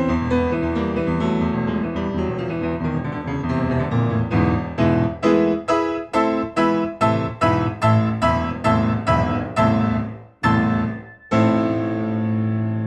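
Solo piano playing the closing bars of a fast, fiery scherzo: a run of loud, repeated detached chords, about three a second, then two single chords with short breaks between them, and a final chord held and left to ring.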